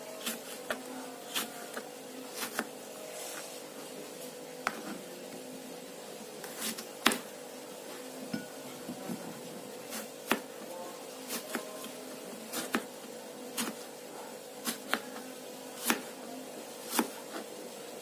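Irregular sharp knocks and clicks of kitchen prep work, roughly one a second, over a faint steady hum.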